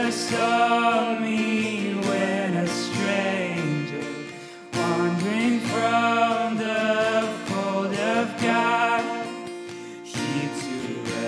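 Hymn played on acoustic guitar with a singing voice carrying the melody, in two phrases with a short break between them.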